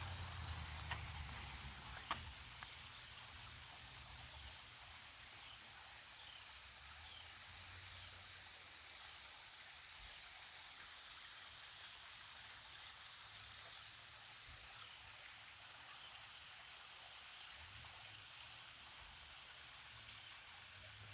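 Faint, steady hiss of creek water running, with a single sharp click about two seconds in.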